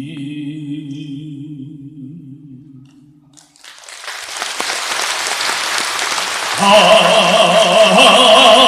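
A singer holds a low, wavering tone for about three seconds. A rush of noise then swells up, and about two-thirds of the way through a loud sustained voice with wide vibrato comes in over it.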